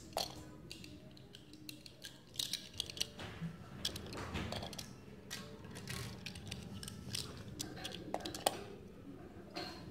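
Irregular small clicks and taps of a die-cast toy car being picked up and set down on a paper-covered surface by hand, with light handling noise.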